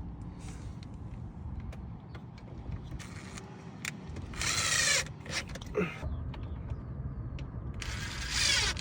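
Electric screwdriver driving the trim screws back in: two short whirring runs, about four and eight seconds in, with small clicks and knocks of handling parts between.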